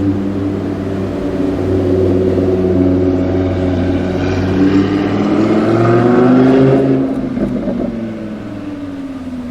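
Audi R8 V10 Plus's V10 engine through a Capristo exhaust, running low, then revving up over a few seconds to its loudest about six seconds in. It then eases off and fades, with a few short pops as the throttle is lifted.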